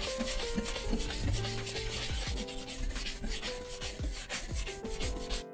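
Quick, repeated rubbing strokes on a new bridle leather tote bag, buffing off the bloom of beeswax and tallow that rises to the surface of new bridle leather. Soft background music runs underneath.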